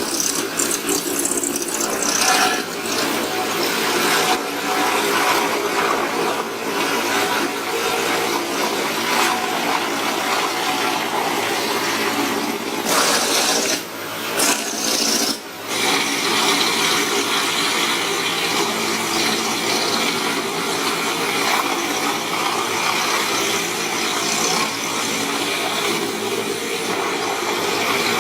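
A large wood chipper running: a steady engine hum under a loud grinding noise. The sound drops out briefly twice around the middle.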